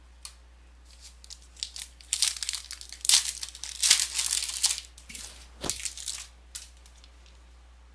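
A trading-card pack wrapper being torn open and crinkled by hand, a run of irregular crackling and tearing that is loudest in the middle and dies away after a few seconds.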